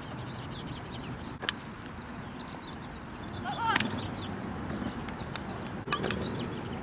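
Open-air background hiss with a few sharp clicks, one about a second and a half in and two close together about six seconds in, and a short rising chirp-like call near the middle.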